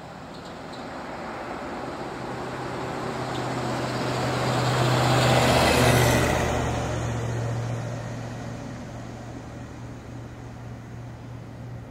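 A road vehicle's engine drawing closer, passing by about halfway through with a drop in pitch and a rush of tyre and road noise, then fading away.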